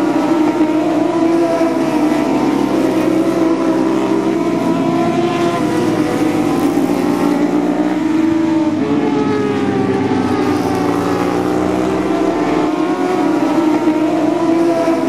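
Several racing superbike engines running at high revs together, their pitch rising and falling without a break.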